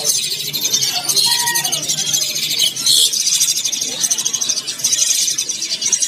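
Young Asian pied starlings (jalak suren) begging for food, a continuous harsh, high-pitched chatter from several gaping chicks at once.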